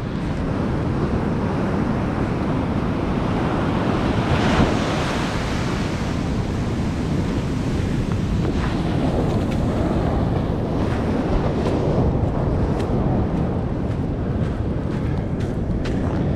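Ocean surf breaking and washing up a sandy beach, with wind buffeting the microphone; the surf swells louder about four and a half seconds in.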